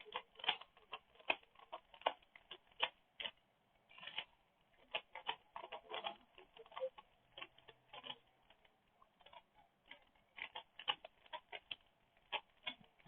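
A 3x3 Rubik's Cube being turned fast by hand mid-solve: the plastic layers give rapid, irregular clicks and clacks that come in quick flurries, with short gaps between them.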